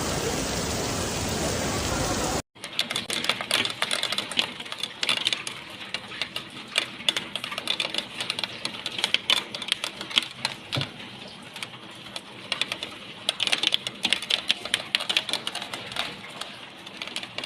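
Heavy rain: a steady loud rush of downpour for about two seconds, then, after a sudden cut, a dense irregular patter of drops striking a hard surface close by.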